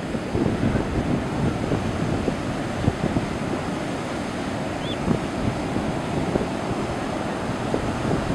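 Big, sloppy storm surf breaking and churning on the beach, with strong wind buffeting the microphone in uneven low gusts.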